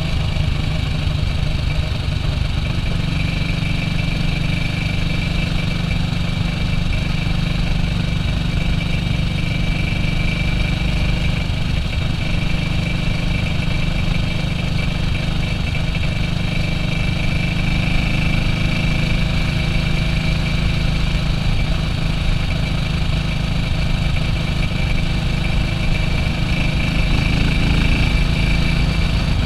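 1967 BSA B40 WD motorcycle's single-cylinder four-stroke engine running at a steady, even speed, a little louder near the end.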